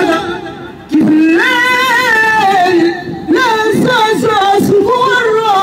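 A boy singing a folk song in long, wavering held notes, with a brief break just before a second in.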